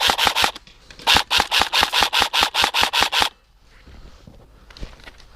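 Airsoft rifle firing close by in two strings of rapid shots, about seven a second: the first string stops about half a second in, the second runs from about one second in to a little past three seconds.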